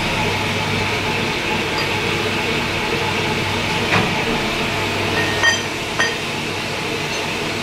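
Lathe running steadily with a low hum, with three sharp metallic clinks about four seconds in and twice more around five and a half to six seconds, the last two ringing briefly.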